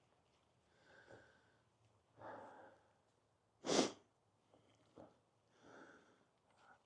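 A man's faint breathing while he walks uphill, a breath every couple of seconds, with one sharper, louder sniff a little under four seconds in.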